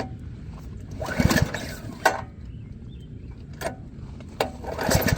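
Small gas engine of a pressure washer being pull-started twice without catching, with a few sharp clicks between the pulls.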